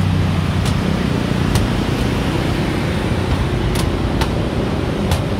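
Steady road traffic noise from motorbikes and cars passing on the road below, with a few short, sharp clicks scattered through it.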